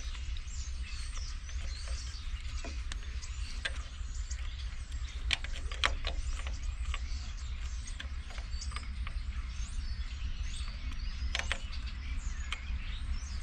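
Scattered sharp clicks and light clinks of hand tools and metal parts being handled, over a steady low hum.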